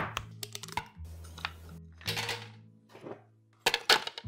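A metal scoop scraping through vanilla ice cream, with a sharp click at the start and a short scrape about two seconds in. Near the end comes a quick run of hard clicks, like ice cubes dropping into a glass. Soft background music plays under it.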